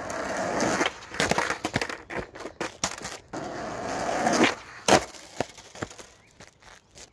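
Skateboard wheels rolling on rough concrete with scattered clacks, rolling twice. About five seconds in there is a single sharp clack of the board hitting the pavement, then a few fainter knocks; the trick was not landed.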